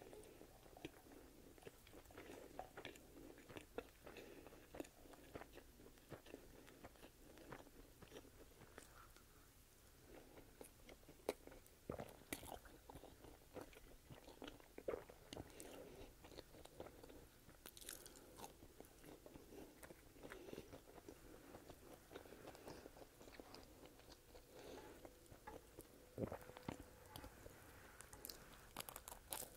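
Quiet, close-miked eating: chewing and biting curly fries, with soft crunches and wet mouth clicks throughout, then a bite into a sub sandwich near the end.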